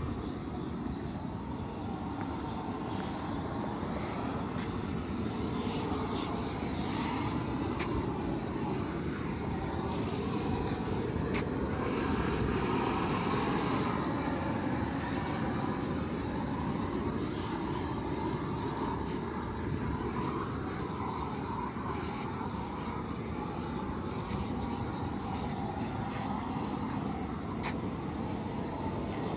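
Propane roofing torches burning steadily with a rushing hiss as they heat modified-bitumen roll roofing being torched down. The hiss swells and brightens for a couple of seconds about twelve seconds in, and a few faint ticks sound.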